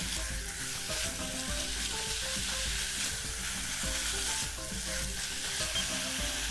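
Minced meat sizzling as it stir-fries in a pot over a gas burner. Wooden and silicone spatulas scrape and stir through it the whole time.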